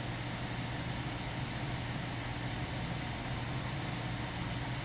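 Steady low hum with an even hiss, unchanging throughout, like a fan or air-conditioning running.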